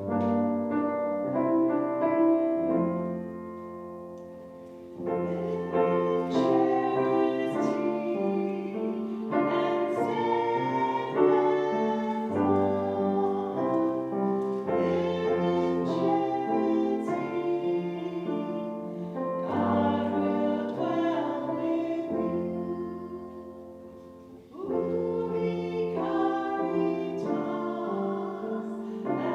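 Church hymn music: voices singing with piano accompaniment, in long sustained phrases that fade twice and pick up again.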